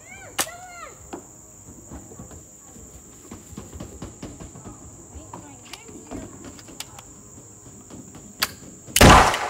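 Steady high-pitched insect chorus, with scattered faint clicks. Near the end comes a loud burst of noise about half a second long.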